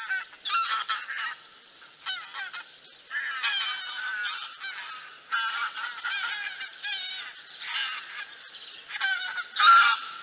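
A flock of wild geese honking, many short calls overlapping in bouts with brief gaps, the loudest call near the end.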